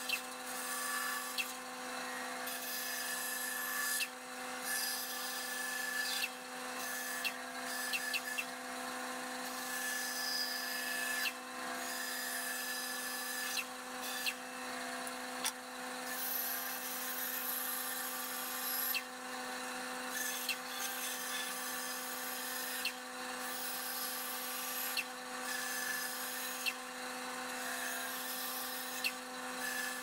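Bandsaw running with a steady hum while its blade cuts curved shapes in hardwood boards; the cutting noise comes and goes, with short ticks and knocks as the wood is pushed and turned against the blade.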